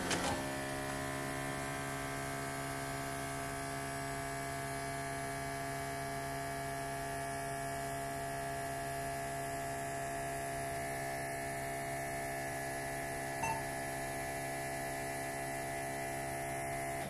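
Electric vacuum pump for a power brake booster running steadily, a hum with many overtones, pumping the system up to its set vacuum of about 25 inches of mercury. At the very end it cuts off suddenly as it reaches that vacuum and shuts itself off.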